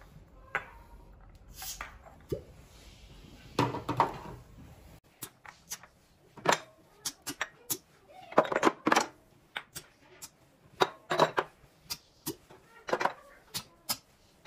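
Glass cupping cups being taken off skin one by one and gathered in the hand, clinking against each other: a run of sharp clicks and taps, some with a short ring, coming thick and fast after about five seconds.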